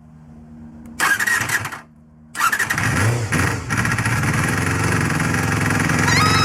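Honda Jade's MC14E 250cc inline-four motorcycle engine starting: a short burst about a second in, then it catches and runs steadily. A few rising, then held, tones join near the end.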